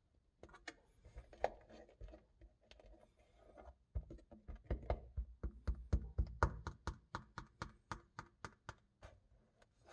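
Replica cup-ramen noodles and toppings being handled and drawn out of a paper cup onto a hardened fake soup spill: a run of light clicks and taps with faint rubbing, sparse at first, then about three or four clicks a second from about four seconds in, stopping just before the end.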